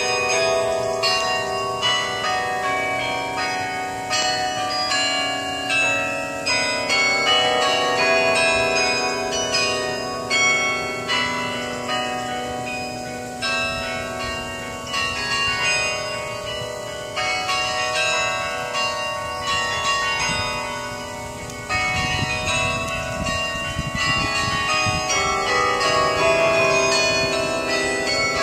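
The Thomas Rees Memorial Carillon being played: a tune of many struck bronze bells, each note starting crisply and ringing on under the ones that follow.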